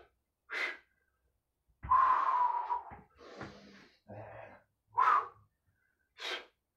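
A man's hard breathing from exertion: short, forceful exhales between kettlebell high-pull burpee reps, with one longer, louder exhale about two seconds in.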